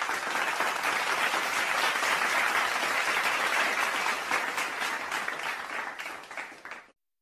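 Crowd applause: many people clapping in a steady dense patter that fades near the end and then cuts off.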